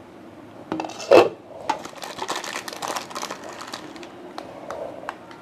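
Kitchen cookware clatter about a second in, then a couple of seconds of scraping and rubbing with small clicks.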